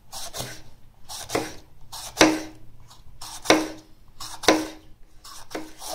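Kitchen knife slicing through a red bell pepper on a wooden cutting board: about six strokes, roughly one a second, each ending in a knock of the blade on the board.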